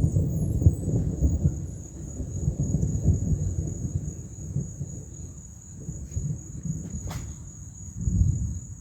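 Thunder rumbling low and rolling during a thunderstorm, heaviest at first, fading, then swelling again near the end. Insects trill steadily at a high pitch throughout, and there is one sharp click about seven seconds in.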